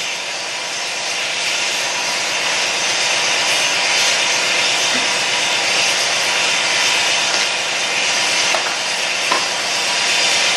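Steady hiss of compressed air as the truck fills the trailer's air brake lines.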